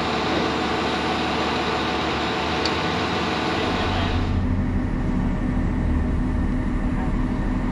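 Heavy diesel semi truck running down the road, with road and wind hiss. About four seconds in the hiss drops away suddenly, leaving a steady low engine drone.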